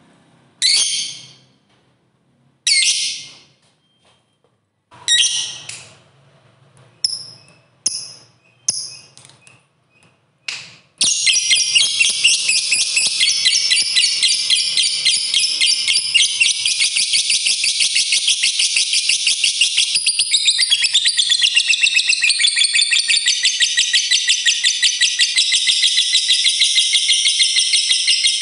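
Lovebird gives several separate shrill chirps a couple of seconds apart, then shorter quicker ones, and about eleven seconds in breaks into a long, unbroken, rapid chattering trill: the 'ngekek panjang' long chatter prized in a fighter lovebird in full song.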